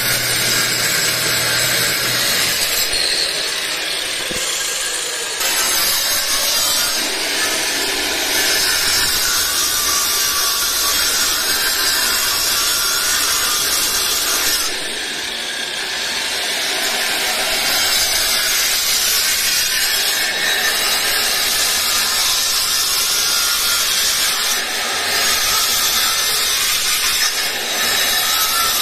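Angle grinder cutting into a stucco wall, the disc grinding continuously with a harsh, gritty noise. The cut eases off briefly about halfway through.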